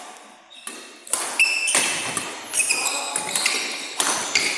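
Badminton rally on an indoor court: court shoes squeak sharply on the floor and racket hits on the shuttlecock crack out one after another, echoing around the hall. The knocks and squeaks start about a second in and keep coming.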